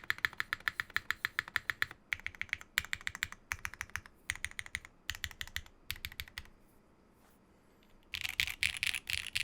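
Typing on a Geonworks F1-722 mechanical keyboard with lubed Geon Black switches, an aluminium half plate and GMK Amethyst keycaps: quick runs of keystrokes, a pause of about a second and a half, then a louder, denser flurry of keystrokes near the end.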